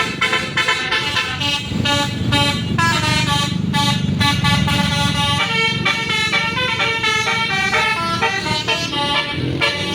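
Bus telolet horn, a multi-tone air horn, playing a quick melody of changing notes over a low rumble that swells for a few seconds in the middle.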